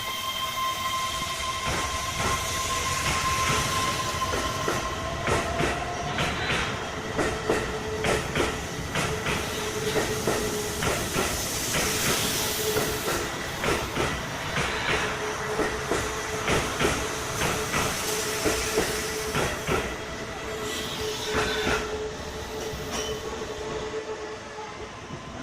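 Keihan Main Line electric train passing at speed, its wheels clattering over rail joints in a steady run of clicks, with a steady hum from the train alongside.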